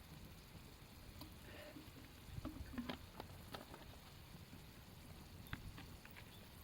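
Campfire crackling faintly over a low rumble, with a cluster of sharp pops around the middle and a few more near the end.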